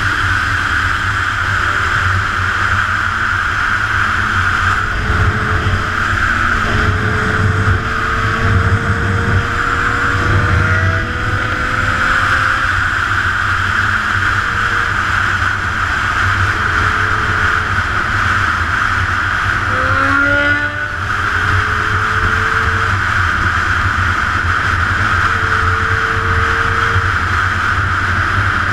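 Steady wind roar and road noise at speed, with a Honda CBR1000RR sport bike's engine note rising and falling faintly underneath. About two-thirds of the way through, the engine revs up quickly.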